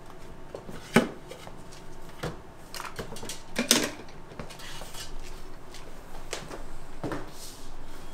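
Bar utensils and dishware being handled: a series of separate clinks and knocks. The loudest comes about a second in, and a cluster follows around three and a half seconds in.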